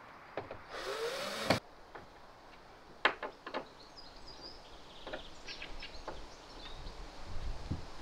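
Cordless drill driving a screw into the plywood bulkhead panel, its motor spinning up for under a second and stopping abruptly about a second and a half in. A few sharp clicks follow about three seconds in.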